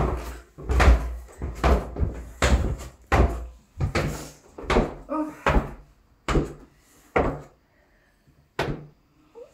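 A steady run of heavy thuds, roughly one every second, from footsteps coming down carpeted stairs into a small hallway. A short high yelp from a small dog comes about five seconds in. The knocking thins out near the end.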